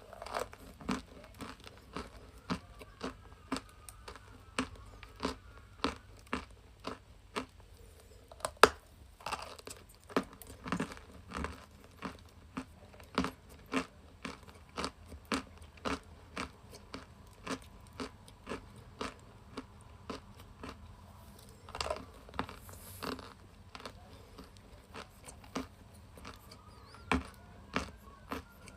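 Chalk sticks being bitten and chewed close to the microphone: a steady run of crisp crunches, about one or two a second, with a few louder, longer bites.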